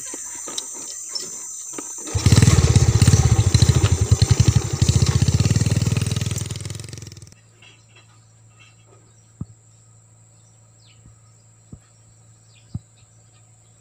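Small motorcycle engine running loud as it rides past, starting suddenly about two seconds in, then fading and cutting off abruptly about halfway through. Before it, insects chirr steadily.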